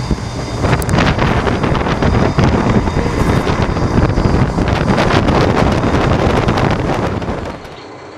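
Heavy wind buffeting the microphone aboard a moving fishing trawler, over the boat's engine. It drops off sharply to a quieter steady engine hum about seven and a half seconds in.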